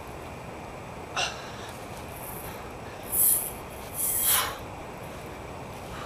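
Two sharp, hissing exhales about a second apart, from someone swinging a mace in a workout, over a steady background hiss. A shorter sound comes about a second in.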